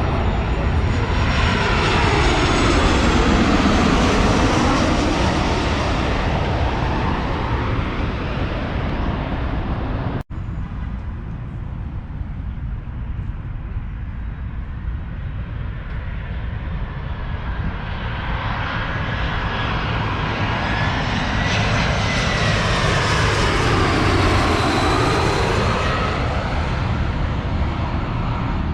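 Jet airliners passing low overhead on final approach to land, two in turn: each swells to a loud rushing engine roar with a sweeping whine, then fades away. The first is loudest a few seconds in, and the sound cuts out for an instant about ten seconds in; the second is loudest near the end.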